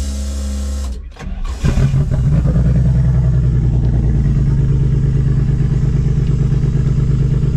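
Ford Barra inline-six engine cranking on the starter, stumbling briefly about a second in, then catching and settling into a steady, even idle.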